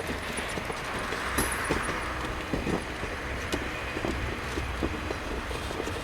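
Rail grinder at work on the track: a steady grinding hiss with many short clanks and knocks scattered through it.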